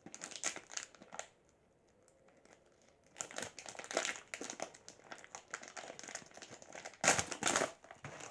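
Surprise-doll packaging crinkling and rustling as it is unwrapped by hand, in irregular bursts. There is a pause of about two seconds after the first second, and the loudest rustle comes near the end.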